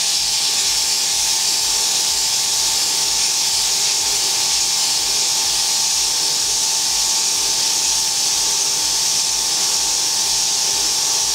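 Sandpaper held against both faces of a brake rotor spinning on a BL505 brake lathe: a steady, loud abrasive hiss over a steady tone from the running lathe. It is the non-directional sanding pass that smooths out fine machining grooves rather than removing material.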